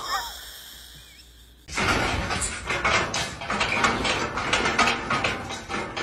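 Black metal bar gate rattling and clanking in a fast, dense run as an animal climbs and shakes it, starting about two seconds in.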